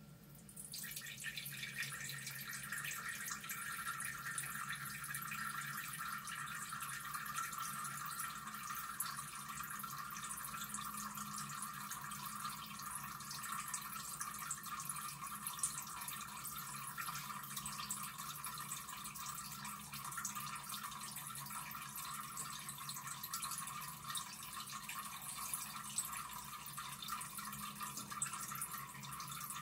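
A cat urinating into a toilet bowl: a steady stream trickling into the water, starting about half a second in.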